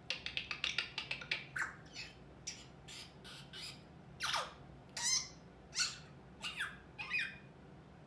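African grey parrot vocalizing: a quick run of short clicks and chirps, then a string of separate squawks and whistles, one a whistle falling steeply in pitch about halfway through.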